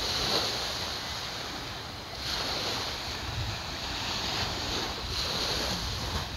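Small surf washing onto a sandy beach, swelling and fading every couple of seconds, with wind rumbling on the microphone.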